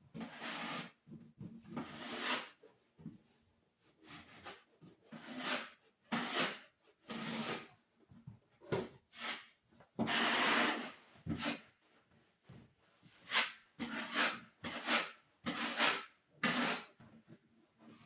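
Scrubbing a dirty kitchen surface by hand: about fifteen irregular back-and-forth rubbing strokes, each half a second to a second long.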